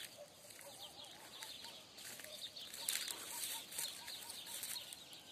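Faint bird calls: scattered high chirps, with a run of short, evenly repeated calls in the middle, over a few brief rustles.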